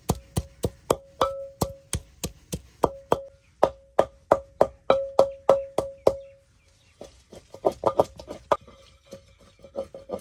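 Wooden pestle pounding ginger in a clay mortar: steady knocks about three a second, each with a short ring from the clay bowl. About six seconds in the pounding pauses briefly, then goes on lighter, quicker and less even as the ginger breaks down to a paste.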